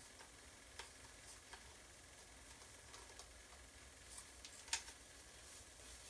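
Near silence with faint room tone and a few scattered light clicks, as of small objects being handled; one sharper click about three quarters of the way through.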